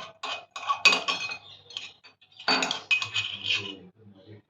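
A metal spoon clinking and scraping against metal kitchenware while finely ground black peppercorns and cloves are scooped out: a run of short, sharp, ringing clinks in two clusters.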